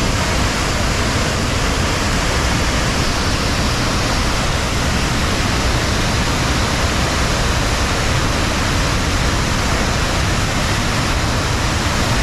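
Cumberland Falls, a large waterfall, rushing steadily as a dense, unbroken roar of falling water.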